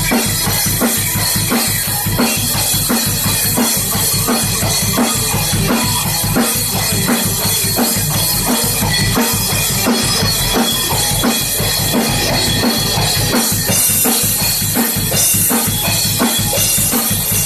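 Electric guitar playing an original rock jam over a drum kit that keeps a steady beat.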